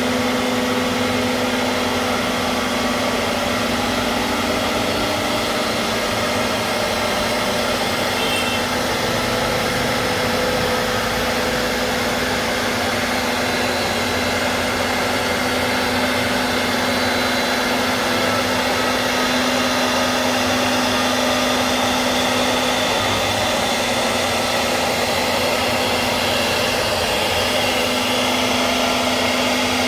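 CNC router spindle running steadily: a constant whine over an even hiss, with no change in pitch or level.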